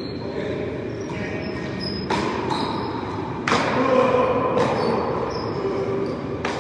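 One-wall paddleball rally: the ball is struck by paddles and slaps off the front wall, four sharp knocks spread over a few seconds, each with a short echo. A steady background noise runs underneath.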